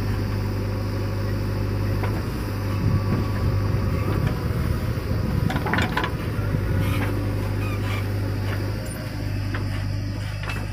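JCB 3DX backhoe loader's diesel engine running steadily while the backhoe bucket digs into dry soil, with a few scrapes and knocks from the bucket and earth about halfway through.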